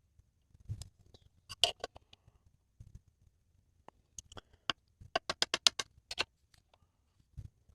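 Sharp clicks and taps of hard objects being handled, with an even run of about eight quick clicks in the middle and a dull thud near the end.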